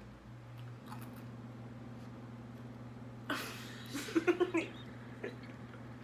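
Two boys breaking into stifled giggling and laughter about three seconds in, in short bursts, over a steady low hum.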